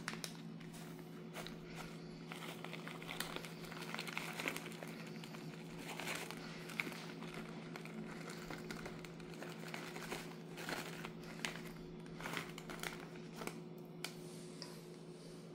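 Chocolate bar wrapper crinkling in the hand in short, irregular crackles as chopped chocolate pieces are shaken out of it onto cake batter.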